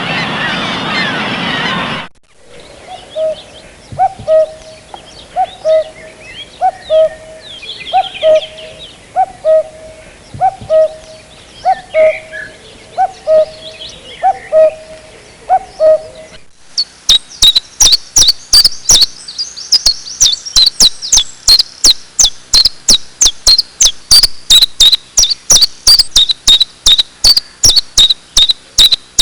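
A brief rush of noise, then a bird repeating a low hooting call about every second, with small birds chirping faintly behind. About sixteen seconds in, this switches to a rapid, regular, high-pitched chirping like a cricket's, several pulses a second.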